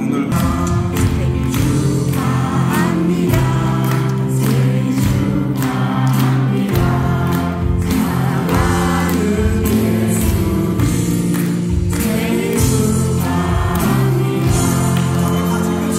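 A choir of many voices singing with instrumental accompaniment, held bass notes under a steady beat.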